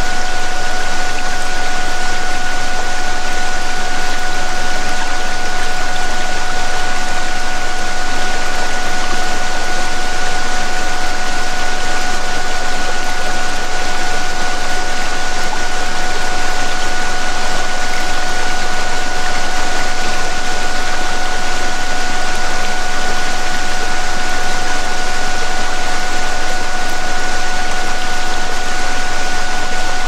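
Steady rushing waterfall sound overlaid with a constant electronic tone and a second tone an octave above it: a synthesized healing-frequency drone mixed with water noise.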